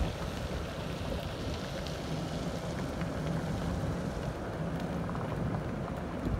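Wind rumbling on the microphone, a steady low outdoor noise with no voice.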